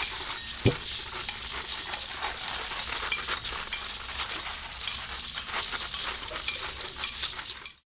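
Dense, steady crackle of many tiny clicks and rattles, made with music-room percussion objects as part of a nature soundscape, with a single low thump about a second in; it cuts off suddenly near the end.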